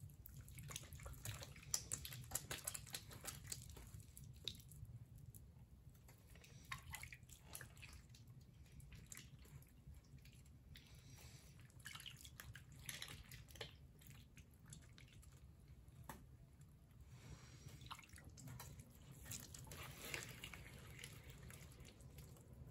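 Faint, irregular wet squishing and dripping of slurry-covered hands working red terracotta clay on a spinning potter's wheel, over a steady low hum.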